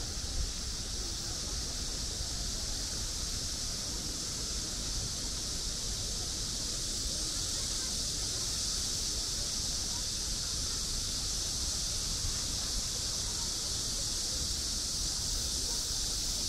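Outdoor park ambience: a steady high-pitched hiss over a low rumble, unchanging throughout.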